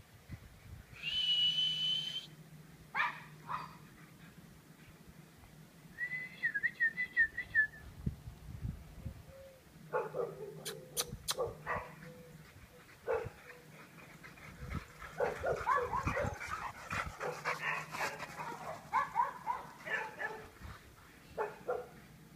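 Boxer puppies whining, yipping and barking in play: a wavering high whine, then a long run of rapid yaps and yelps in the second half.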